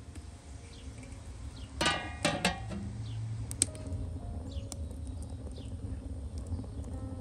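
A few ringing metallic clinks about two seconds in, like a plate or lid knocking on a metal pot or stove, then a wood fire burning in an open stove firebox with a single sharp crackle a moment later, over a low steady rumble.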